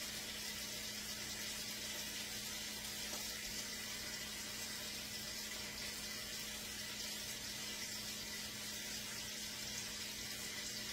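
Steady sizzle of food frying in a pan on the stove, with a faint steady low hum underneath.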